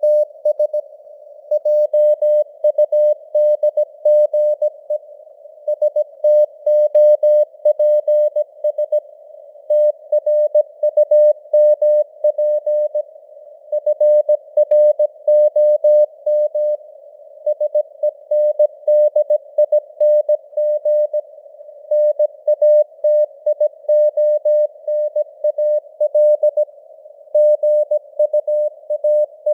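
Morse code (CW) sent at 17 words per minute: a single steady mid-pitched tone keyed on and off in dots and dashes, with short gaps between words. It sits in a narrow band of simulated radio receiver hiss.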